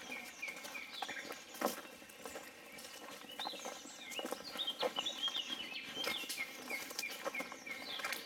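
A bird singing: runs of short, repeated high chirps, a few a second, near the start and again near the end, with scattered faint clicks.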